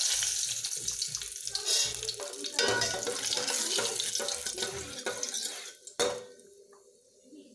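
Hot tempering oil sizzling and spluttering in a steel pot as chopped greens hit it, with a steel ladle knocking and stirring. A sharp tap of the ladle on the pot comes about six seconds in, and the sizzle then dies down.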